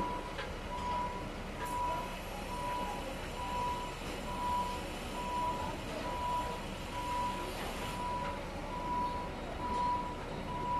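Backup warning alarm beeping in a steady single tone, about three beeps every two seconds, over a constant low machinery rumble.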